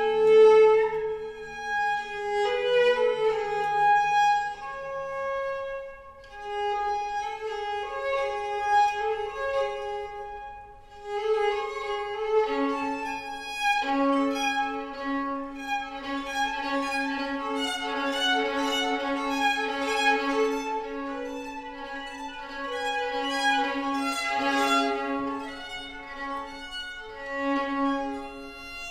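Violin playing a bowed melody of held notes, often with two or more notes sounding together. A steady lower drone note enters a little before halfway and holds beneath it.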